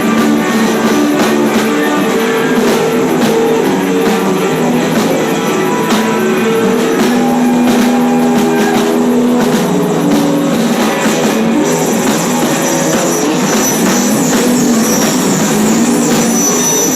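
Loud, dense live noise music from an electric guitar: held tones that step between pitches over a constant wash of noisy clatter, with no break.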